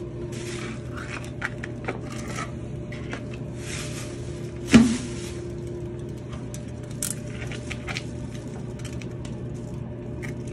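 Knife and smoother scraping and tapping on glass-bead vinyl wallpaper as it is trimmed at the floor line: scattered short scrapes and soft clicks, with one sharp click about five seconds in, over a steady low hum.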